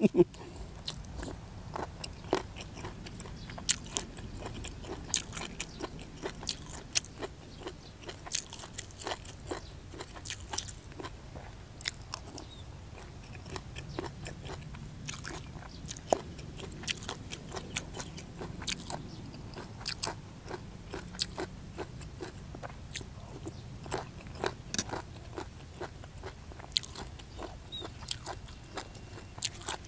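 Close-miked chewing of crunchy hed thob (Astraeus earthstar puffball) mushrooms from a curry, with many irregular sharp crunches and crackles as the tough skins are bitten through.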